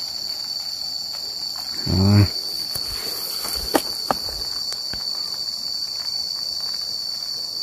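Insects calling in a steady, unbroken high-pitched drone. A short vocal exclamation comes about two seconds in, and two sharp clicks a moment apart come near the middle.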